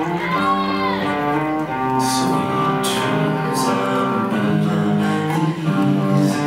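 Music with guitar and sustained notes, with a few sharp high hits through the middle.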